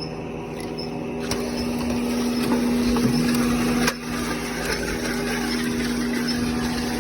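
Lockformer 14-station triplex roll former running with a steady hum, rolling sheet metal into the female part of a standing seam. Two sharp metallic clicks come about a second in and about four seconds in.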